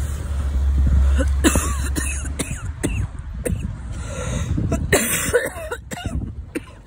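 A string of short coughs, over a steady low hum that cuts off a couple of seconds in.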